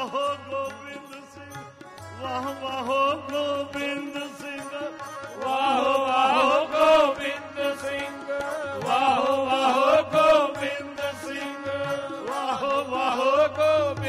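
Sikh shabad kirtan: voices singing to harmoniums, with tabla keeping time. The music swells louder about six and again about nine seconds in.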